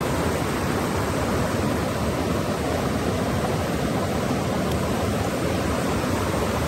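Steady rush of a small mountain trout stream running over boulders and small cascades.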